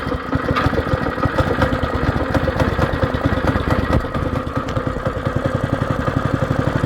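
Baja Warrior minibike's small single-cylinder engine running at a steady idle just after firing up, on a freshly fitted clean carburetor. The firing pulses come fast and even, with a brief dip about four seconds in.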